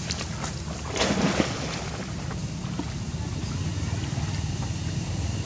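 Gentle water splashing and lapping as a swimming monkey carries its infant through a pond, over a steady low rumble of wind on the microphone, with a louder burst about a second in.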